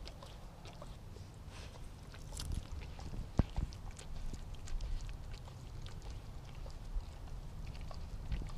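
Alaskan Malamute licking a large block of ice: scattered wet tongue clicks and slurps on the ice surface, one sharper click about three and a half seconds in, over a steady low rumble.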